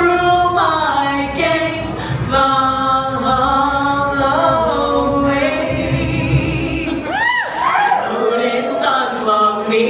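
Unaccompanied voices singing in harmony, drawing out the long held closing notes of a song, with a quick swooping note about seven seconds in.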